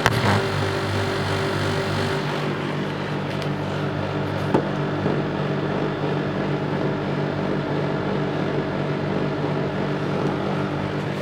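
Daikin split air conditioner running with a steady mechanical hum made of several low tones. There is a short click near the start and another about four and a half seconds in, and one low tone drops out about two seconds in.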